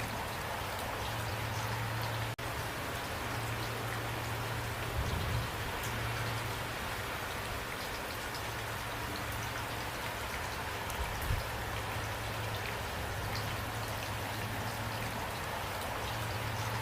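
Steady rain falling, with scattered individual drops pattering over an even hiss. A low hum runs underneath, and there are two faint low thuds. The sound cuts out for an instant about two seconds in.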